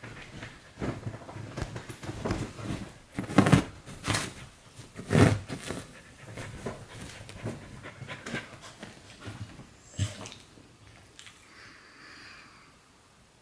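A Samoyed rummaging with its nose through a pile of laundry on a bed: clothes rustling with the dog's panting, with a few louder bursts in the middle. Near the end it settles and the sound drops off.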